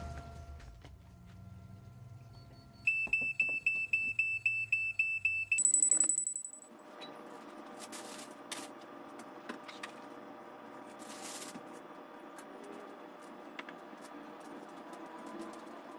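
An electronic alarm beeps rapidly, about four beeps a second for some three seconds, then gives a short run of higher-pitched beeps. After that, aluminium foil crinkles and rustles in scattered bursts as it is wrapped, over a faint steady hum.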